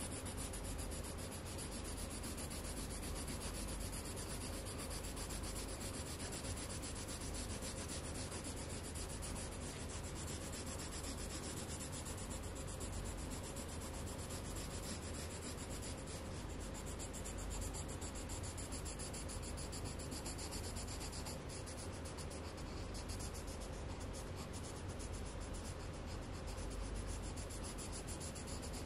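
Coloured pencil scratching on paper in rapid back-and-forth shading strokes, colouring in an area of a drawing.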